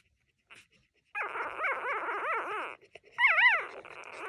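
Three-day-old puppy whining: starting about a second in, a run of wavering, warbling cries, then a short, louder, higher cry about three seconds in.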